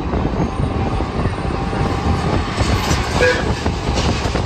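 TECO Line replica streetcar running along its track, heard from inside the car: a steady rumble of wheels on rail and the motors, with a short high note about three seconds in.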